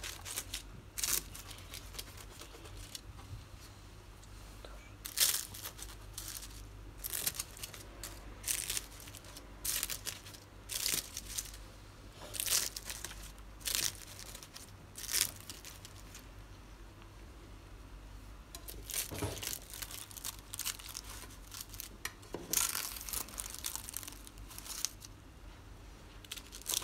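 Crisp layers of freshly baked baklava phyllo crackling and crunching in short, irregular bursts, a dozen or more of them with quiet gaps between.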